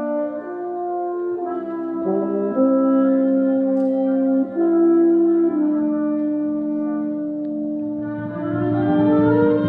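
Band music in a slow, lyrical passage: mellow brass, horn-like in colour, holding chords that change every second or two. Lower bass notes join about eight seconds in.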